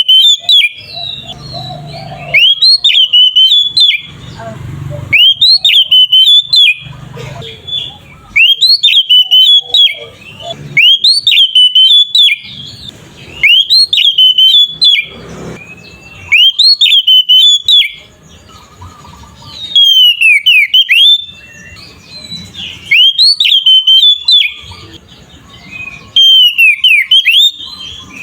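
Oriental magpie-robin singing loud, clear phrases of sweeping whistled notes. About ten phrases come one after another, each about a second and a half long, with short pauses between them.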